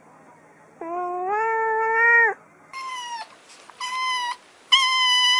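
A cat's long meow, held on one note. Then a kitten meows three times, shorter and much higher-pitched.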